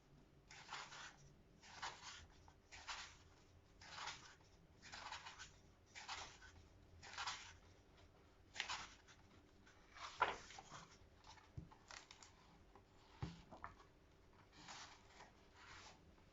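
Faint paper rustling: book pages turned one after another, about one a second, with a few sharper clicks in the second half.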